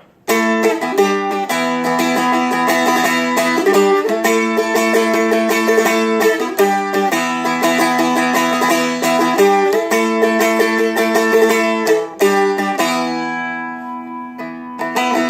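Seagull Merlin, a four-string dulcimer-style fretted instrument, strummed fast with a pick through a chord progression with frequent chord changes. Near the end a chord is left to ring and fade before a few last strums.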